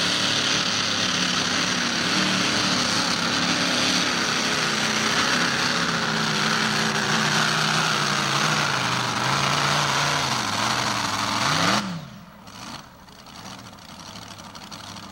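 Modified pulling tractor's multiple engines running flat out under load, the pitch wavering up and down as it pulls. About twelve seconds in there is a last quick rev, then the engines cut sharply, leaving a much quieter rumble.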